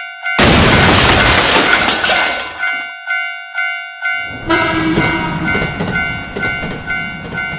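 Japanese level-crossing warning bell ringing about twice a second while trains rush past the crossing twice. The loud rushing noise of the first train starts just after the beginning and stops about three seconds in, leaving only the bell. A second train passes from a little past halfway until near the end.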